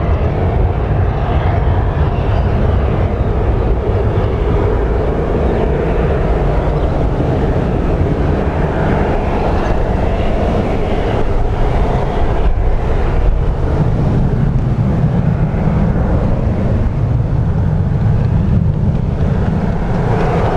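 Jet engine noise of a Boeing 737-800 airliner climbing away after takeoff: a steady low rumble from its CFM56-7B turbofans at climb thrust. The rumble swells somewhat in the second half.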